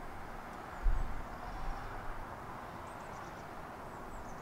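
Outdoor background noise with faint short bird chirps high up, and a single low thump about a second in.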